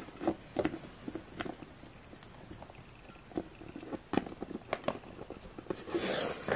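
Small plastic Littlest Pet Shop dog figurine tapped and hopped on a wooden tabletop: a scatter of light clicks and knocks, with a short rustle of handling near the end.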